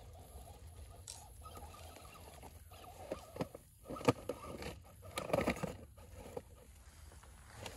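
Scale RC crawler truck working over rough trail ground: irregular knocks, scrapes and crunches of tyres and chassis on rocks and dirt, with one sharp knock about four seconds in and a burst of crunching a second later.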